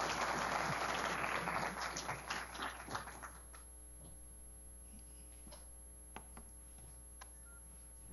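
Audience applauding at the end of a lecture, thinning to a few last separate claps and dying away about three seconds in. Then a quiet room with a few faint clicks and taps.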